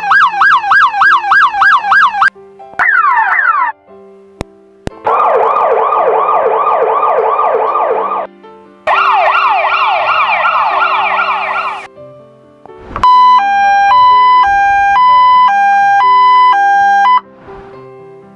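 A run of synthetic emergency-siren sound effects played one after another with short gaps: a fast yelp sweeping up and down about four times a second, then rapidly repeating sweeps, then a two-tone hi-lo siren alternating between two notes near the end. Background music plays underneath.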